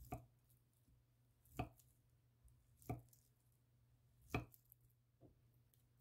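Serrated knife cutting through a block of soft pink processed meat and knocking on a wooden cutting board: four sharp knocks, about one every second and a half, then a fainter one near the end.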